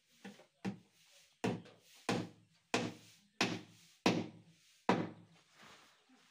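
Hammer blows on a plywood speaker cabinet while nailing in the grille support: about eight sharp thunks, roughly one every two-thirds of a second. The first two are lighter, and each blow rings briefly in the hollow box.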